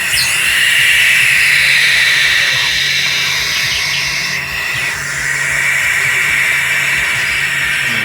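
Young pet owl making long, loud hissing calls: one drawn-out hiss, a weaker stretch, then another long hiss from about five seconds in.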